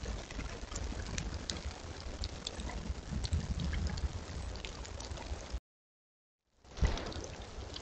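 Outdoor ambience through a trail camera's built-in microphone: a steady low rumble and hiss with a patter of scattered light ticks. It drops to dead silence for about a second where one recording ends, and the next starts with a sharp thump.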